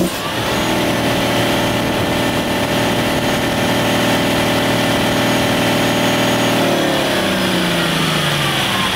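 Caterpillar C-9 straight-six diesel revving up just after the start and holding a steady raised speed, then slowing back down toward idle near the end.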